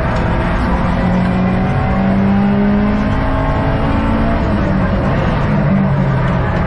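Subaru WRX STI's turbocharged EJ20 flat-four engine running hard under load on a track lap, heard inside the cabin, its pitch rising and shifting with the throttle.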